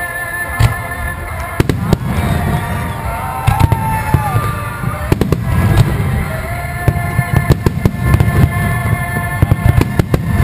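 Fireworks display: many shells bursting in quick, irregular succession, sharp cracks and booms over a continuous low rumble, with music playing alongside.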